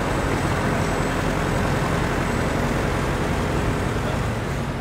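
Steady road traffic on a busy city street: cars and a double-decker bus driving past, with a low engine rumble and tyre noise.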